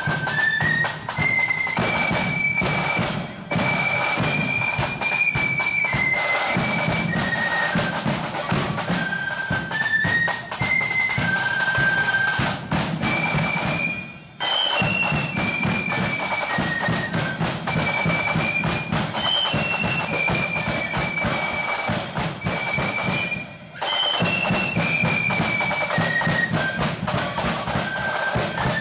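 Marching flute band playing a tune in unison, the high flute melody carried over driving snare and bass drums. The music breaks off briefly twice, at about the middle and about two-thirds through, and starts again.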